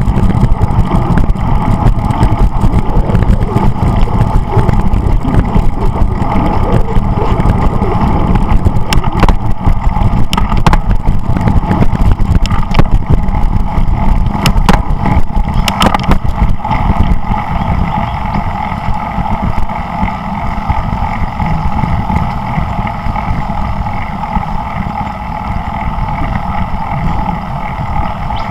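Steady rumble of wind buffeting and road noise on a camera riding along on a moving bicycle, with a handful of sharp clicks and knocks in the middle.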